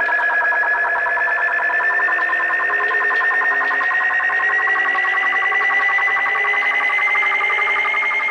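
Warbling electronic tone, several pitches sliding slowly upward together, over a faint low pulse about every second and a half.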